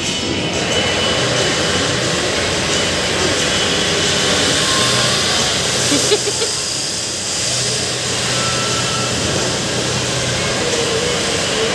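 A loud, steady rushing noise, like a machine running.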